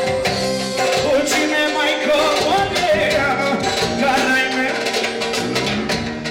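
Live band playing Balkan kyuchek dance music, with steady drumming under a wavering, ornamented lead melody.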